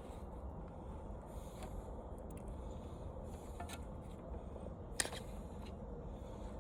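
Faint handling of wires and plastic parts being pulled out of an old TV, with a few small clicks and one sharp click about five seconds in, over a steady low hum.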